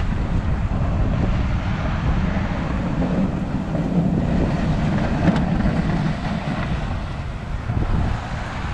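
Plow truck driving, its engine and road noise making a steady low rumble.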